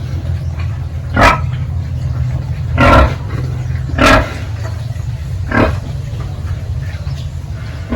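Pigs giving four short, loud squealing calls, spaced one to one and a half seconds apart, over a steady low hum.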